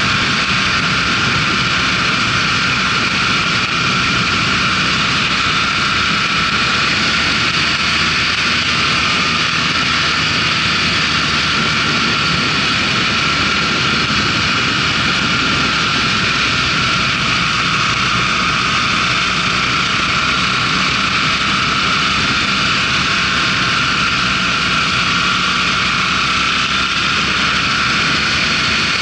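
Motorcycle riding at about 50 to 60 km/h, heard from a camera mounted on the bike: a steady rush of wind over the camera with the engine's drone underneath, unchanging throughout.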